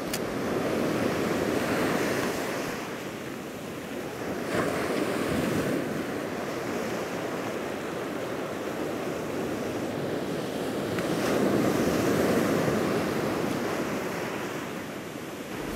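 Ocean surf breaking and washing up a sandy beach, swelling louder and falling away again several times, loudest about two, five and twelve seconds in.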